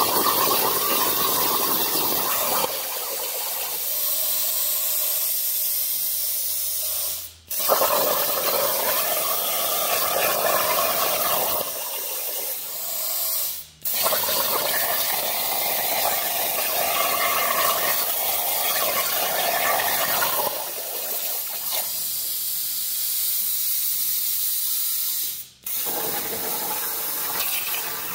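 CNC plasma cutting torch cutting steel plate: a loud, steady hiss of the arc and air. It cuts out three times for about half a second and comes straight back, once with a sharp crack, as the torch stops and re-fires for the next cut.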